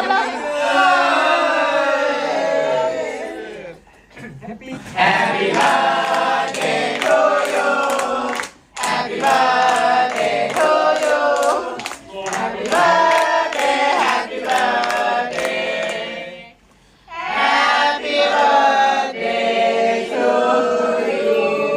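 A group of voices singing a birthday song together, in phrases broken by short pauses.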